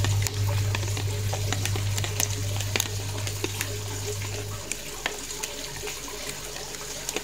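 Metal spoon stirring a runny coconut-milk, honey and vinegar bait mixture in a plastic tub: wet sloshing with occasional light clicks of the spoon against the tub. A steady low hum runs underneath and stops about four and a half seconds in.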